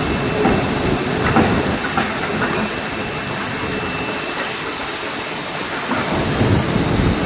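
H-beam assembly, welding and straightening machine running: a steady mechanical hiss and rumble with scattered light knocks and clicks.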